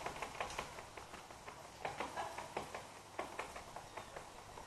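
An irregular run of light taps and clicks, several a second.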